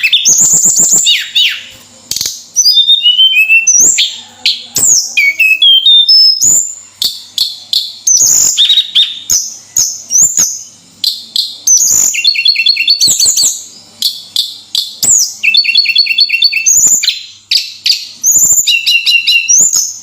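Tledekan gunung, a small flycatcher, singing a fast, varied song of high chirps and downslurred whistles. The phrases come quickly, some of them runs of rapid repeated notes, with short pauses between.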